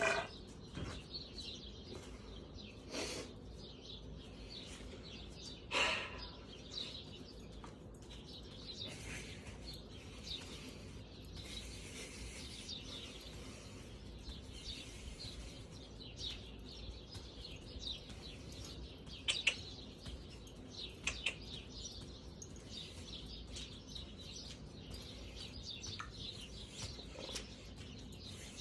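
Small birds chirping and twittering throughout, with a few short knocks scattered through it.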